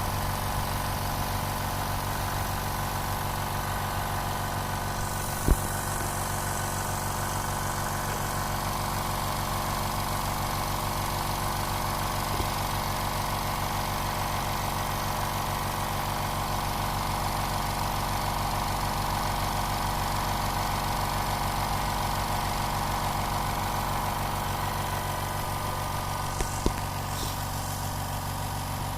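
Dental air compressor running steadily, its motor and pump filling the 30-litre tank with air, with one sharp click about five and a half seconds in.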